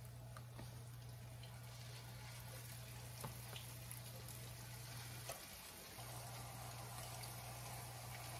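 Turkey meatballs sizzling faintly in hot oil in a skillet as they are set in one at a time, with a few light taps. A steady low hum runs underneath and drops out briefly about five seconds in.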